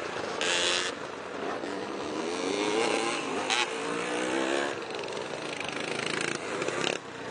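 Vintage motocross bikes riding the dirt track, their engines revving up and falling back as riders pass close by, with others running further off on the circuit.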